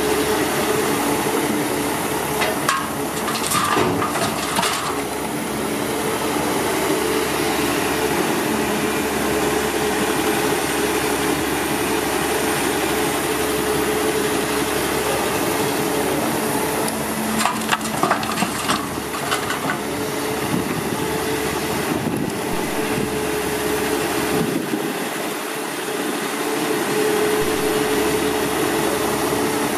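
Heavy truck or construction machinery engine running steadily, with bursts of clattering and knocking a few seconds in and again about halfway through.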